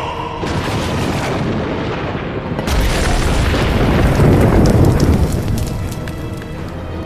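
Film sound effect of a fiery explosion: a rushing blast starts about half a second in, grows louder with a deep rumble about three seconds in, and eases off near the end.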